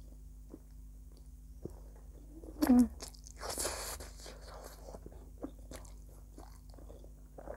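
Close-miked eating of instant noodles: soft wet chewing with small mouth clicks, a sharp slurp about two and a half seconds in, and a longer hissing slurp just after.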